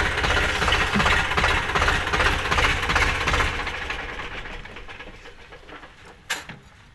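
Tractor diesel engine running with a fast knocking beat, fading away over the second half; one sharp click near the end.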